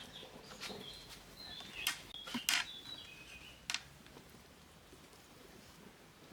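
Several sharp clicks and knocks, the loudest about two and a half seconds in, mixed with short high chirps during the first three seconds, then only faint outdoor background.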